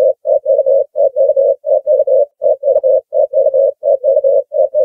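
Ring-necked dove cooing: a rapid run of about twenty short, low coos at one even pitch, grouped in twos and threes.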